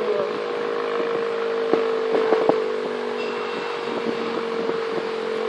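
Outdoor tornado warning siren sounding a steady, unwavering tone, with a few short clicks over it.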